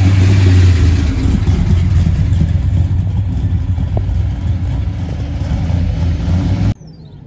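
Steady low rumble of a running vehicle, cutting off suddenly near the end.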